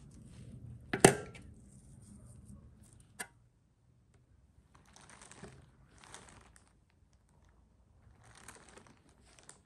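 A metal spoon knocks sharply on the rim of an aluminium bowl, ringing briefly, with a smaller click a couple of seconds later. Then comes soft, short rustling three times as a moist chopped-greens-and-cheese filling is spooned onto rolled dough.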